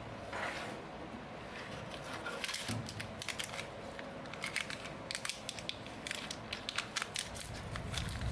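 Irregular clicks, ticks and light scrapes of hard 3D-printed plastic parts being handled and pressed together during assembly.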